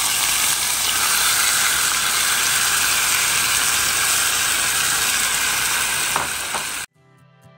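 Garlic and olive oil frying in a pan as cooked, chopped cabbage is scraped in with a silicone spatula: a steady sizzling hiss. The sizzle cuts off suddenly near the end, and soft background music follows.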